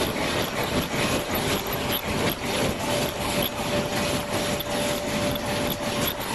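Mattress tape edge sewing machine running, a dense mechanical clatter of rapid repeated clicks over a steady whine that stops about six seconds in.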